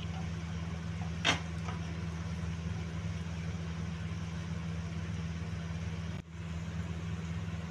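A steady low hum from a running motor, with a faint hiss from the pan of frying masala chicken. About a second in there is one short clink, the spatula against the pan. Near the end the sound drops out for a moment at an edit.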